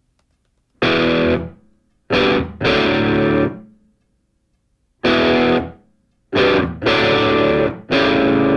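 Music: distorted electric guitar chords struck in short ringing bursts, with brief silences between them.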